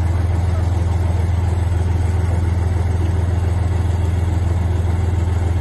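Tank's diesel engine idling, a loud, deep, steady drone.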